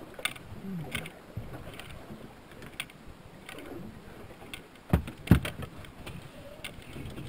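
Knocking and handling noises in a small aluminium fishing boat: scattered light clicks and taps, then two loud thumps about half a second apart near the end.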